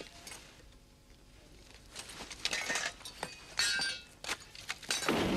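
Small metal trinkets clinking and rattling in two short spells as they are rummaged through by hand. Near the end a loud crash breaks in.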